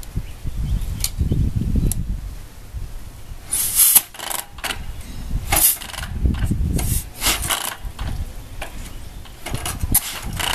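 Chopper motorcycle being kick-started a few times: the kick pedal drives the engine through short, rumbling turn-overs, and the engine does not catch and run.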